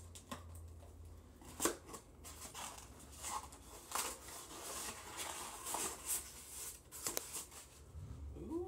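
A cardboard coffee-mug box being handled and opened by hand: scattered clicks and taps with short crinkling rustles of packaging, over a steady low hum.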